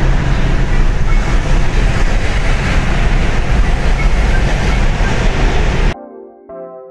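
Loud, steady road noise of a moving vehicle, heaviest at the low end. About six seconds in it cuts off abruptly, and soft synthesizer and keyboard music takes over.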